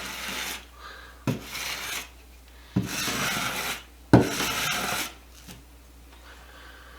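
Putty knife scraping joint compound across a small metal drywall-texturing piece pressed against the wall, pushing the mud into the texture. Several scraping strokes about a second and a half apart, each opening with a sharp tap; the last stroke is the loudest.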